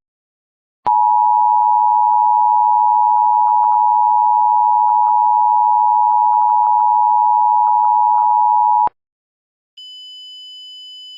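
Emergency Alert System attention signal: a loud steady two-tone beep held for about eight seconds, then cut off. Near the end a much fainter, higher steady tone comes in.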